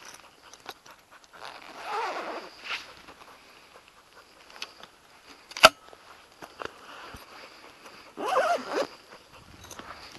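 Close rustling and handling noise at the microphone, with a single sharp click about halfway through that is the loudest sound, and two short wavering pitched sounds, one about two seconds in and one about eight seconds in.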